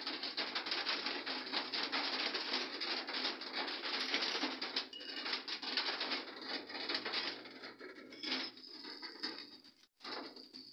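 Batter sizzling and crackling on a hot aluminium pan: a steady hiss with fine crackles that thins out after about eight seconds.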